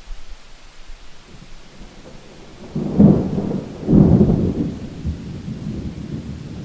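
Thunder over steady rain: a low rumble swells about three seconds in, breaks into two loud claps a second apart, then rolls away slowly.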